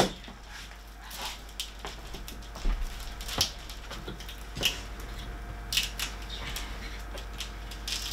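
Scattered light clicks and knocks of small 3D-printer parts and a hand tool being handled at a tabletop, with a sharp click at the start and a cluster of knocks a little over halfway in.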